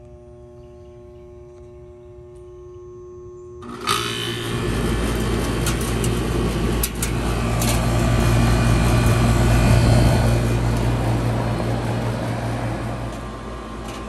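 A 1989 Carrier TECH2000 2.5-ton central air conditioner's outdoor unit starting up: after a few quiet seconds the compressor and condenser fan kick on abruptly about four seconds in, with a deep steady hum and rushing air that grow louder over the next several seconds. It starts and runs after a bad run capacitor was replaced.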